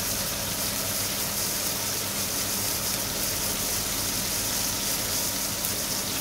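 Beef hamburger patties with cheese on top sizzling steadily in hot fat in a frying pan, with a low steady hum underneath.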